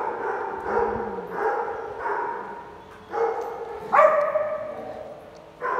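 A dog barking over and over, roughly a bark every second, with the loudest barks about three and four seconds in.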